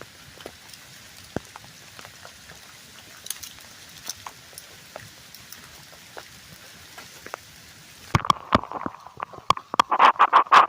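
Steady hiss with scattered light taps, like light rain falling. About eight seconds in, loud irregular scraping and knocking close to the microphone takes over.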